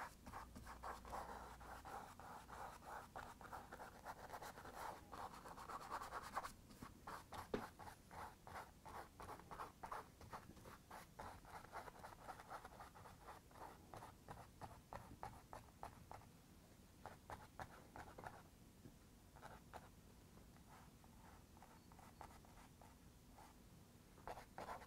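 Faint scratching of a paintbrush's bristles on canvas: many short, quick strokes that thin out in the last third to near silence.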